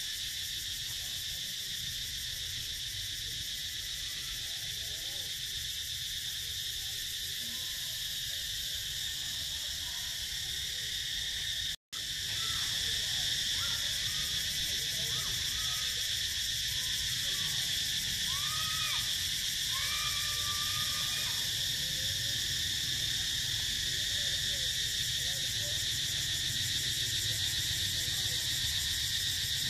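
Steady insect chorus, a shrill drone in several high bands, with faint short rising-and-falling calls in the second half. The sound cuts out for an instant about twelve seconds in.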